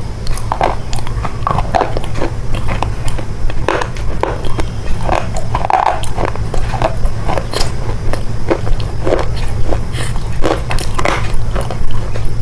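Chocolate being bitten and chewed close to the microphone: irregular crunches, clicks and wet mouth noises, over a steady low hum.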